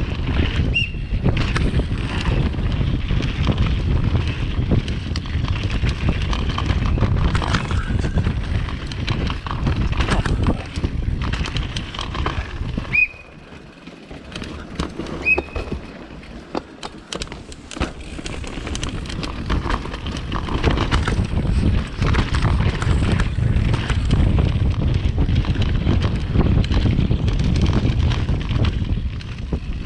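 Wind buffeting an action camera's microphone over the rolling and rattling of a downhill mountain bike on a dirt trail. It drops quieter for about five seconds around the middle as the bike slows, with a few short high squeaks, then builds back up.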